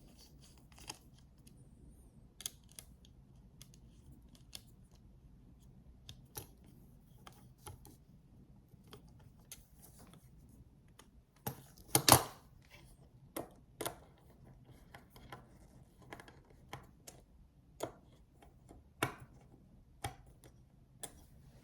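Small, scattered clicks and taps of a small screwdriver turning tiny screws that hold an NVMe SSD onto a PCIe adapter card, with a louder clatter about twelve seconds in.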